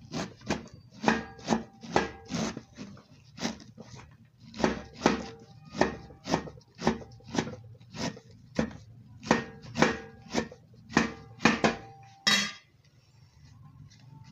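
Kitchen knife chopping pumpkin leaves against a metal tray: sharp, regular chops about two a second, each with a brief metallic ring. A longer, louder scrape comes near the end, after which the chopping stops.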